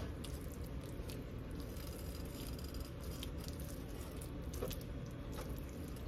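Faint squishing and a few light clicks of a spoon folding a thick shrimp-and-crab dip in a skillet, over a steady low hum.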